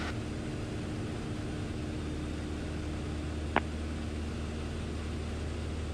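Piper PA-28's engine and propeller droning steadily in the cockpit at cruise power, about 2100 RPM, during a steep turn. A brief click about three and a half seconds in.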